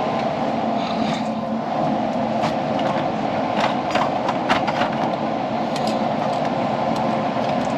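Steady rushing noise of nitrogen being blown through a refrigerant line set to push the RX11 flush out of it, with a handful of light clicks and knocks around the middle.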